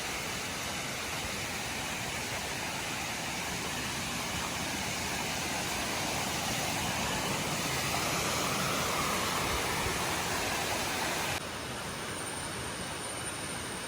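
Waterfall: a steady rush of falling water that swells a little mid-way, then shifts abruptly about eleven seconds in.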